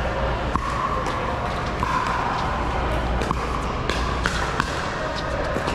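Pickleball paddles striking the ball in a quick rally at the net: sharp, irregular pops that come faster in the second half, over the steady hum and echo of a large indoor hall.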